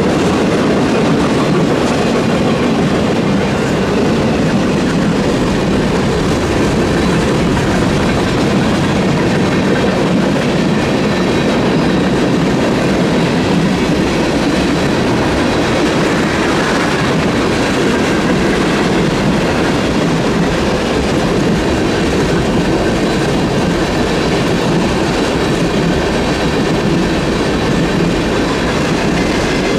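Freight cars, tank cars among them, rolling steadily through a grade crossing: a continuous clatter and rumble of wheels over the rail joints. The crossing's electronic warning bell rings through it.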